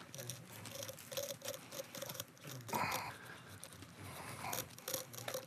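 A knife slitting open a conger eel on a wooden cutting board, with a run of small clicks, scrapes and tearing sounds as the blade cuts through the flesh and touches the board. One louder short sound comes about three seconds in.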